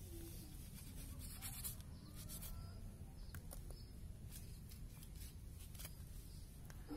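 Faint scraping and scattered small clicks of a knife cutting and freeing the skin from a hanging goat carcass, over a steady low background rumble.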